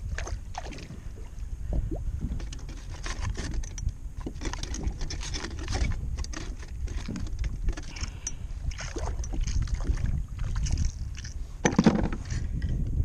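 Knocks, rattles and scrapes as a gaffed mahi-mahi is handled on a plastic fishing kayak, over a steady rumble of wind on the microphone. A louder knock comes about twelve seconds in.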